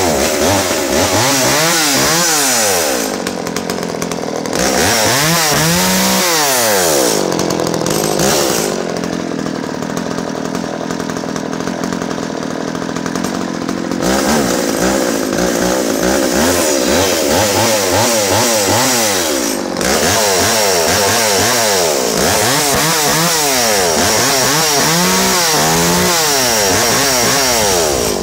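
Solo 606 38cc two-stroke top-handle chainsaw running, revved up and down over and over with the throttle, with a steadier stretch in the middle.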